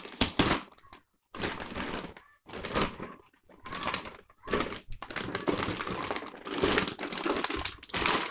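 Thin polythene plastic bag crinkling and rustling in irregular bursts as it is pulled and lifted off a printer.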